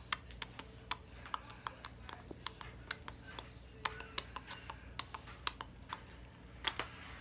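Irregular sharp clicks and crackles, a few a second, from hands working gelled hair into a bun close to the microphone.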